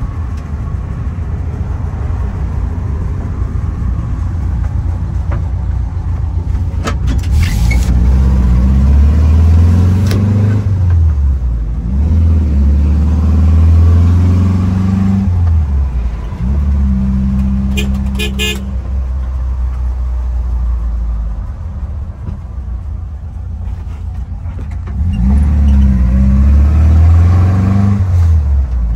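Classic Volkswagen Transporter bus's air-cooled flat-four engine running on the move, heard from inside the cab; its pitch climbs as it pulls through the gears and drops back between shifts. Two brief sharp sounds cut in, once early and again past the middle.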